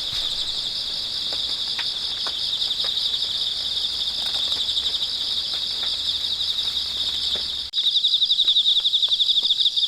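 Higurashi (evening cicadas) calling in a high, fast-pulsing trill. About eight seconds in it cuts to a louder stretch of the same calling.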